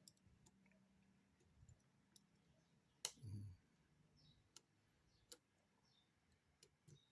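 Faint, scattered clicks and taps of machined air-rifle parts being handled and pushed together by hand on a tight fit. The sharpest click comes about three seconds in.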